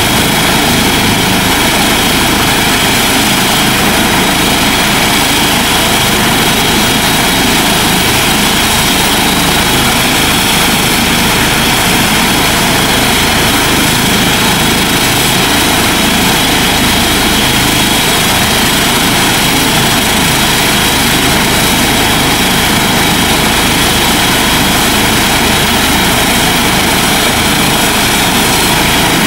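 Twin turbine engines, main rotor and Fenestron tail rotor of a Eurocopter EC135 helicopter running steadily on the ground before take-off. It is a loud, even rush of rotor and turbine noise with a thin high whine over it, with no change in level.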